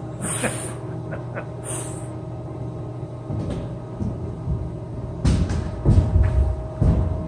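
Hollow thumps and rumbling knocks from an indoor play structure, heaviest in the second half, over a steady background hum.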